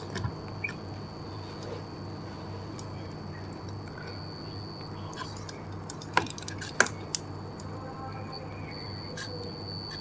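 Refrigerator compressor running in test mode: a steady low hum with a faint steady high-pitched tone over it. A few sharp clicks come about six and seven seconds in.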